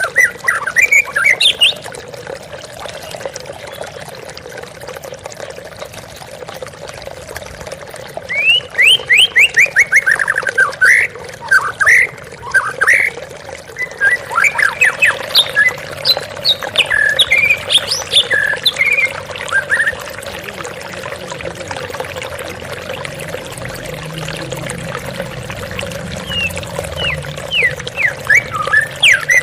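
White-rumped shama (murai batu) singing in several bursts of quick, sweeping notes, at the start, in the middle and near the end, over the steady trickle of a waterfall.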